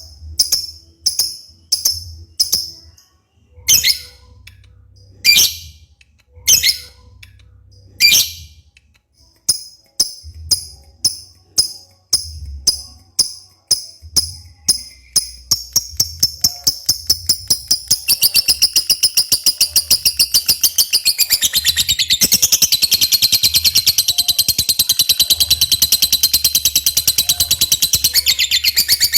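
Lovebird calling: sharp high chirps about twice a second with a few longer, louder calls, then the chirps speed up and, a little past halfway, run together into a long, rapid, unbroken trill, the extended 'ngekek' song that lure recordings of this kind are made of.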